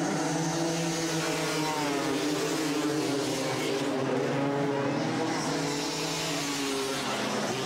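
A pack of dirt bike engines running hard together at racing speed, several engine notes at once with pitches rising and falling.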